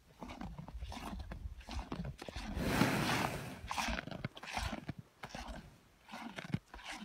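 Holstein cow chewing corn right at the microphone, with repeated crunching as the kernels break. About three seconds in comes a louder rush of the cow's breath lasting about a second.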